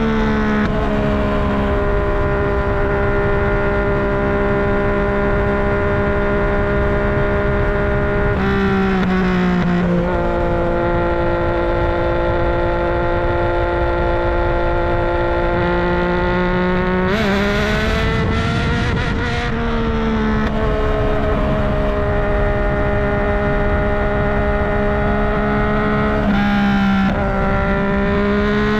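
Yamaha MT-09's three-cylinder engine and exhaust on the move, holding a steady note for several seconds at a time. The pitch shifts three times as the engine speed changes, with a brief rise and fall about two-thirds of the way through.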